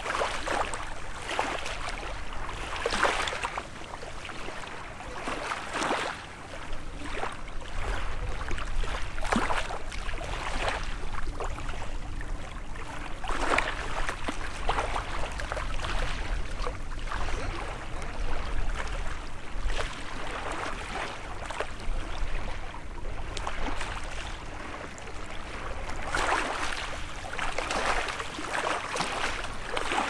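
Small waves of a calm sea lapping and splashing at the shore, a soft wash every one to four seconds, over a low steady rumble.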